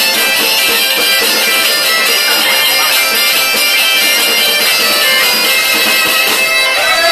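A Galician gaita (bagpipe) plays a lively folk tune over its steady drone.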